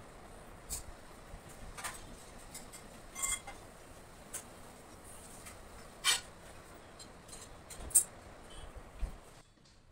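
Graphite pencil drawing on paper: a series of short scratchy strokes at irregular intervals, the loudest about 8 seconds in, over a faint steady hiss that drops away shortly before the end.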